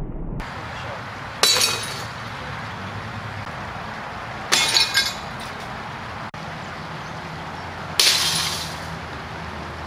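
Three hits on shattered CRT picture-tube glass, each a sharp crack followed by about half a second of glass tinkling; the middle one is a quick double hit.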